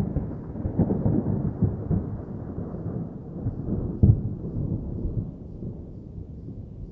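Rolling thunder, with a sharper clap about four seconds in, then dying away.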